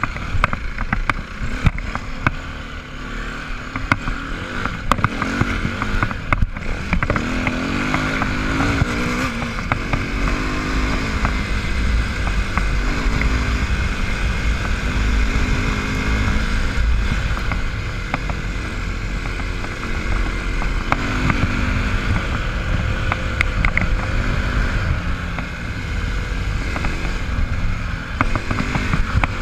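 Dirt bike engine running under way, its pitch rising and falling repeatedly as the throttle is opened and closed. Sharp knocks in the first few seconds come from the bike jolting over rough ground.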